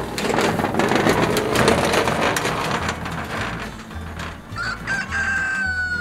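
Chickens in the coop, with a rooster crowing near the end: its held final note lasts about a second and falls slightly. Before that, for the first few seconds, there is a loud, rough rustling and scraping noise.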